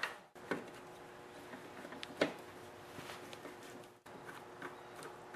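Quiet room tone with a faint steady hum and a few light clicks and taps, the sharpest about two seconds in, from the screws and screwdriver being fitted to the mower engine's plastic top cover. The sound drops out briefly twice.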